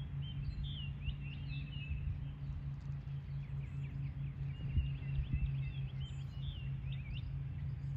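Small birds chirping in many short, quick calls, over a steady low hum and a low rumble.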